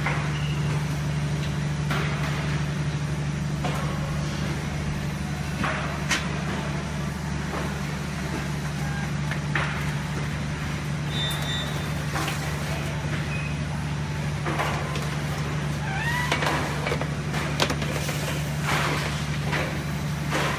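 Steady low hum of a bakery's tunnel oven production line running, with scattered short knocks and clatter.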